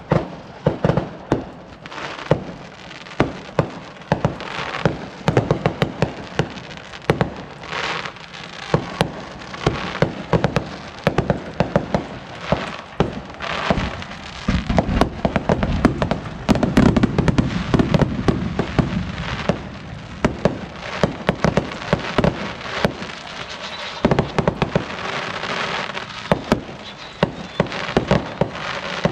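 Consumer fireworks going off in a continuous barrage: many sharp bangs at irregular intervals over steady crackling, with a thicker stretch of booms about halfway through.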